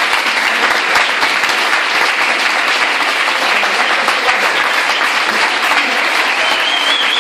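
Audience applauding steadily, a dense sound of many hands clapping.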